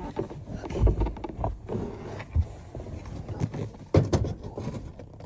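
Irregular knocks, clunks and rustling as a car part is handled and pushed into place, with the loudest thumps about a second in and about four seconds in.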